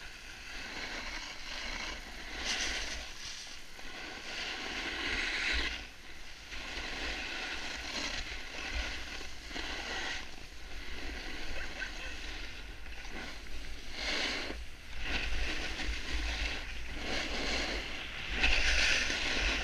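Snow scraping and hissing under a rider sliding down a groomed ski slope, swelling and fading every second or two, with a low rumble of wind buffeting the helmet-mounted camera's microphone.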